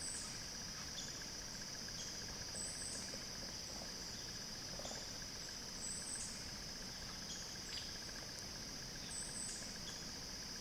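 Steady high-pitched drone of an insect chorus (crickets or similar), with a short, higher chirp repeating about every three seconds.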